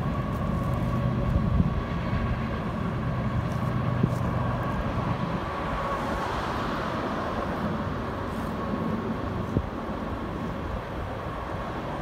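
Passing freight train: the diesel locomotives' engines hum steadily and fade away after about five seconds. After that comes a steady rumble of the rolling freight cars with scattered clicks.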